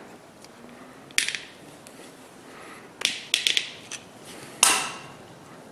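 Metal hand tools clinking against a brass cable connector and a steel bench as pliers and a thin metal tool are handled. There is a sharp clink about a second in, a quick cluster of clicks around three seconds, and another clink near five seconds.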